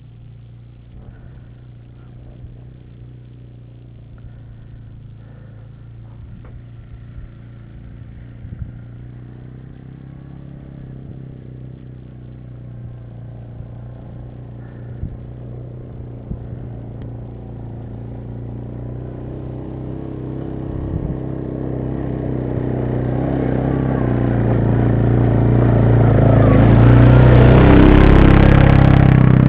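ATV engine running at a steady pitch, growing steadily louder and rougher over the last ten seconds or so, with a rushing noise building up with it.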